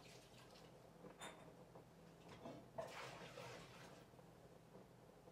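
Near silence: faint kitchen room tone, with a light clink about a second in and a brief soft rustle or splash around three seconds in.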